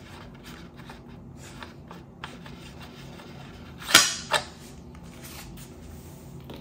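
Two sharp clacks about a third of a second apart as the bike fork is released from the work stand's mount, with a few faint handling clicks before them.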